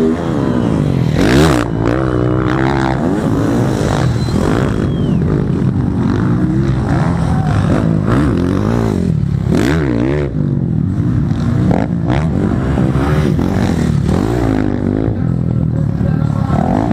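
Motocross dirt bike engines revving up and down as the bikes run the track, with several engines overlapping and the pitch repeatedly rising and falling.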